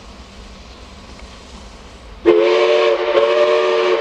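Steam locomotive 5910's whistle sounds sharply about two seconds in, a loud chord of several steady notes with a hiss over them, cutting in over a low rumble and then held.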